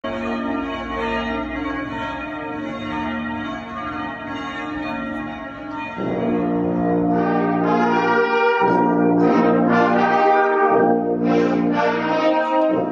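Church bells ringing; about halfway through, a brass ensemble enters, playing louder sustained chords with two short breaks between phrases.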